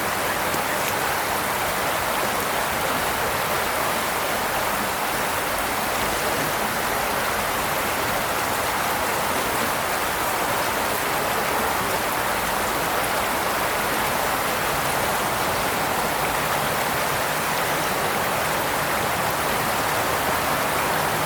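Steady rushing water, an even hiss that does not change.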